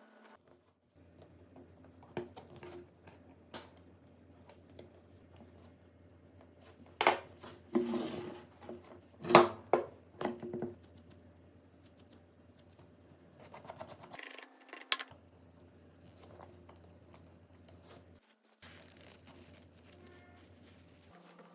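Sharp clicks and short scrapes of small hand tools working on a phone, with a dense run of louder clicks and scrapes about a third of the way in and a shorter one a few seconds later.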